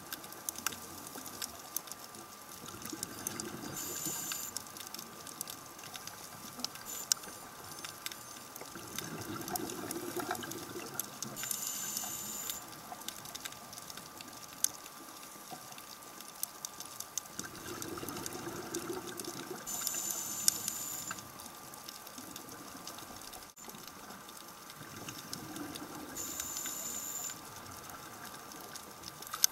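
Scuba diver breathing through a regulator underwater: a short high hiss on each inhalation and a rush of exhaled bubbles, repeating about every eight seconds. A steady scatter of fine clicks runs underneath.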